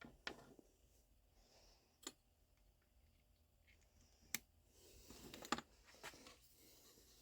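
Near silence in a small room, broken by a few faint sharp clicks about two seconds apart and some brief light rustling a little past the middle.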